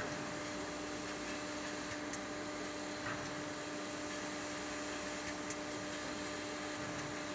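Steam locomotive 241P17 standing in steam, with a steady hiss and a steady low hum running under it.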